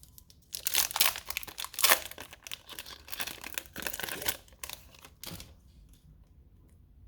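A foil trading-card pack being torn open and crinkled, a run of crackling rustles that dies away about five and a half seconds in.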